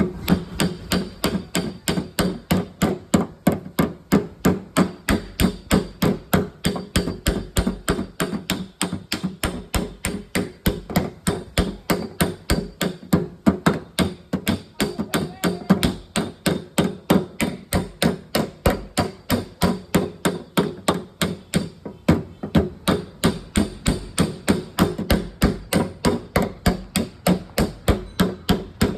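A hammer beating a dent out of a car's steel body panel, striking steadily about three to four times a second with a metallic ring.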